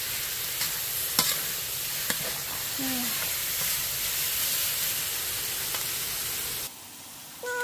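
Stir-frying pad kaprao in a hot pan: a steady sizzle of oil and ingredients with a few sharp clacks of the spatula against the pan. The sizzle cuts off near the end, and a cat starts to meow just before the end.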